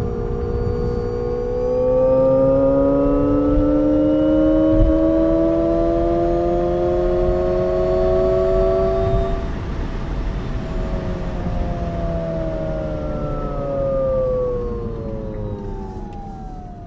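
Alpine A290's synthetic "Alternative Sound" driving sound: a layered electronic tone that rises smoothly in pitch for about nine seconds as the electric car accelerates, then glides back down as it slows. Under it runs a steady low road and tyre rumble.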